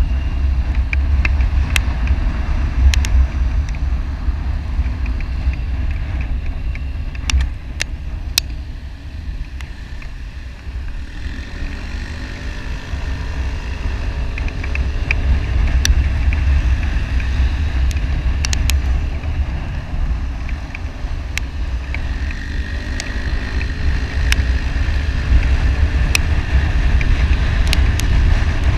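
Riding a motorcycle at speed: wind buffeting the microphone in a heavy rumble, with the engine running underneath, its pitch rising and falling with the throttle. Scattered sharp ticks and knocks break through now and then.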